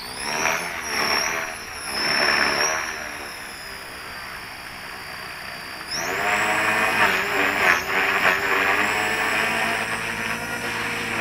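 Electric motors of a small radio-controlled flying model whining at high pitch while held in the hand, the pitch wavering with the throttle. About six seconds in they rev up sharply and keep running higher and louder. The pack is a fresh battery, swapped in after the first one seemed weak.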